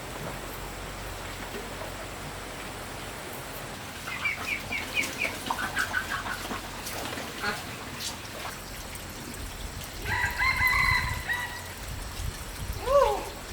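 Chickens calling: short repeated calls in runs, then a rooster crowing once in a long held call about ten seconds in, and a brief falling cluck near the end.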